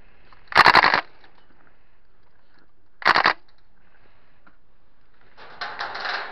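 Gas blowback airsoft Thompson M1A1 firing two short full-auto bursts, a rapid mechanical clatter, the second burst shorter than the first. A softer, looser rattle follows near the end.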